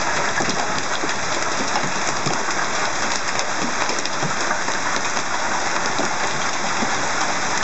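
Heavy hailstorm: hailstones pelting down on the ground and the parked cars, a dense, unbroken clatter of countless small impacts.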